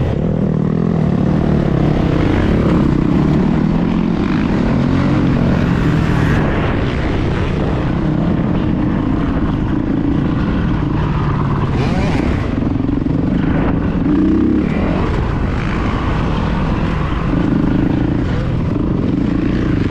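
Dirt bike engine heard from an onboard camera while riding a motocross track, its pitch rising and falling in steps as the rider works the throttle and gears.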